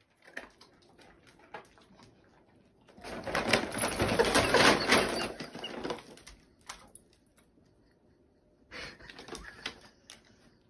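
Brown paper shopping bag rustling and crinkling as a cat moves inside it and the bag tips over, loud for about three seconds, with a shorter rustle near the end.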